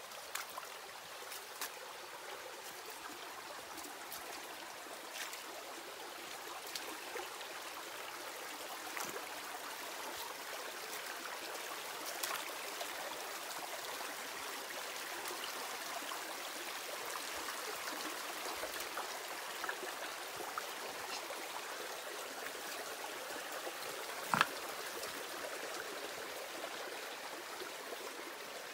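Stream water running and trickling steadily, with scattered small splashes and one sharp click near the end.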